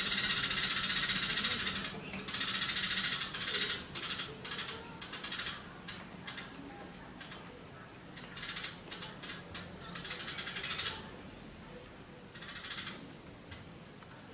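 Eurasian tree sparrow giving long, rapid, buzzy chattering bursts, the "tembakan panjang" prized in masteran recordings, with short chirps scattered between them. Two long bursts open the stretch, a third comes about two thirds of the way in, and a short one near the end.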